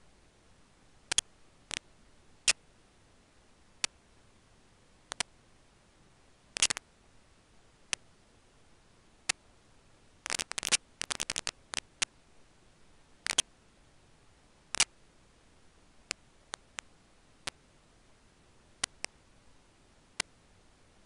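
Sparse, irregular sharp clicks and crackles over a faint steady hiss, with a quick run of them about ten to twelve seconds in. No calls.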